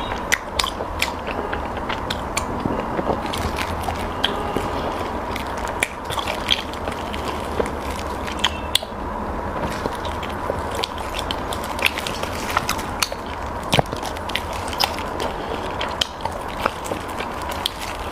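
Close-up chewing and mouth sounds of a person eating, with many irregular wet clicks and smacks over a steady background hum.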